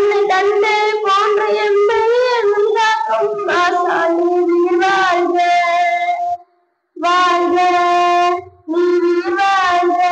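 A boy singing into a handheld microphone, in phrases with long held notes and two short breaks in the second half.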